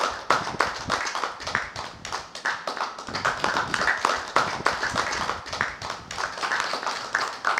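A small group of people clapping their hands: steady applause from a handful of listeners.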